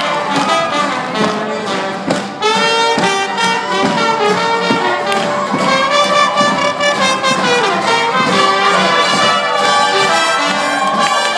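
Full-stage acoustic string band (guitars, banjos, accordion, fiddle, dobro, upright bass) strumming an upbeat song at full volume, with a horn section of trumpets and trombones playing over it.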